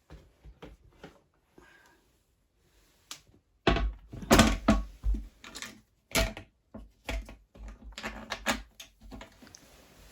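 Plastic toilet seat being fitted back onto the bowl over a bidet attachment: a run of irregular plastic clicks and knocks, light at first and loudest about four seconds in.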